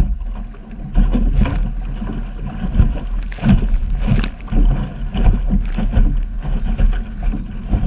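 Wind buffeting the microphone with a steady low rumble, and water slapping and splashing against the hull of a small sailing dinghy moving fast through chop, in irregular bursts.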